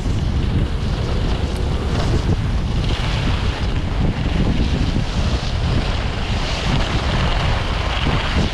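Wind buffeting the microphone of a camera carried by a skier moving downhill, a steady low rumble. Under it is a hiss of skis sliding and carving over packed, groomed snow, which grows stronger about three seconds in.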